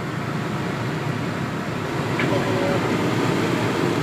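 Steady, fairly loud machine-like background rush with no speech, a little louder near the end.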